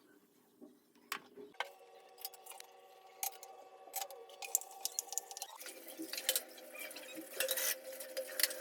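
Cooking utensils clinking and scraping against dishes and pans, many light clicks in irregular succession, over a faint steady hum that shifts abruptly twice.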